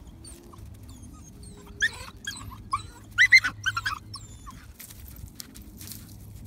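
Puppy whining and yipping in a quick string of high, squeaky cries, loudest about two to four seconds in, as it strains on its leash with excitement.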